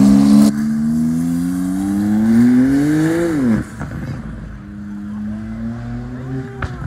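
A car engine accelerating, its pitch climbing steadily for about three seconds and then dropping sharply as the throttle is let off. It then runs at a lower, steady pitch, with a few short blips near the end.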